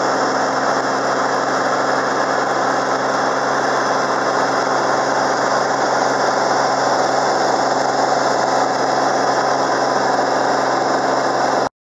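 Cirrus SR22's piston engine and propeller droning steadily as heard inside the cabin in flight, during a climb. It cuts off suddenly near the end.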